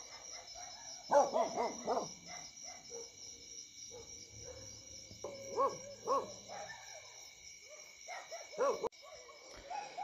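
Night ambience: insects chirring steadily at a high pitch, with short repeated animal calls, hoot-like, in three groups: about a second in, around five to six seconds, and near the end.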